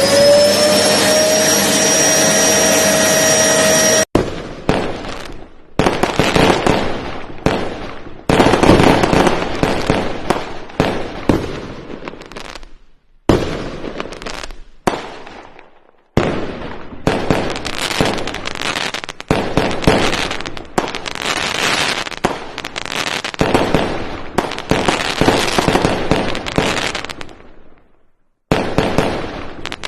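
Fireworks and firecrackers crackling and popping in dense volleys, cut together in short stretches with abrupt breaks between them. Before the first cut, a pitched whine rises and levels off, then stops suddenly.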